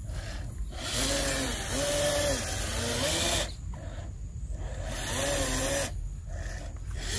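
Electric motor of a 1/10-scale RC crawler truck whining, rising and falling in pitch with each throttle pulse, about four pulses of a second or so each, over a steady hiss.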